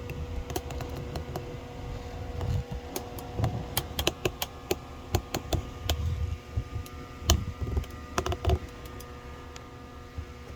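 Irregular light clicks and taps with dull low thuds scattered through, over a faint steady hum.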